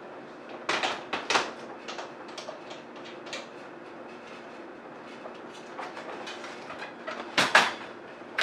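Clicks and knocks of an Elinchrom Rotalux Deep Octabox softbox being handled and fitted onto a light stand. There are a few sharp clicks about a second in, scattered small taps, and a louder pair of clicks near the end.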